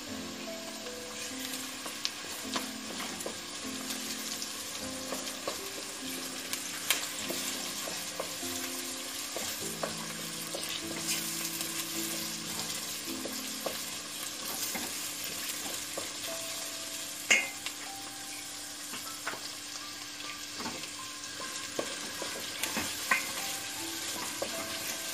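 Onions and garlic frying in oil in a steel pot, sizzling steadily as tomato purée is spooned in and stirred. Two sharp knocks of the spoon against the pot stand out, one about two-thirds of the way in and one near the end.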